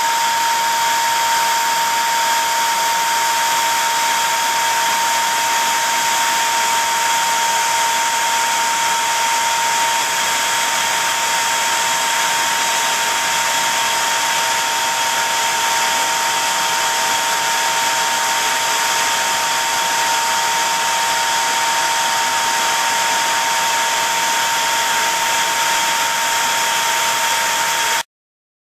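Dual-stage rotary atomizer with a 12-inch fine mesh basket spinning at 5000 RPM, near its top speed, spraying 2 GPM of liquid into fine mist: a steady rushing hiss with a steady whining tone through it. It cuts off suddenly near the end.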